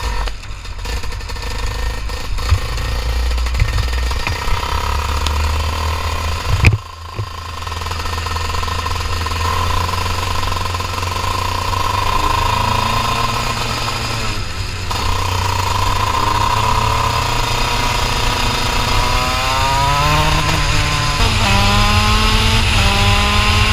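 KZ2 shifter kart's 125 cc two-stroke engine heard onboard, running steadily as the kart rolls away, with one sharp knock about seven seconds in. Near the end it revs up through several quick gear changes, each a rising whine that breaks off and climbs again.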